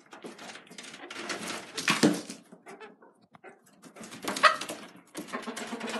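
Chicken giving short whiny squawks amid scuffling and rustling in the coop, loudest about two seconds in and again about four and a half seconds in.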